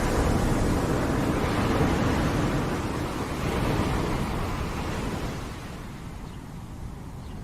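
Ocean waves breaking on a shore: a wash of surf that swells near the start and slowly ebbs away towards the end.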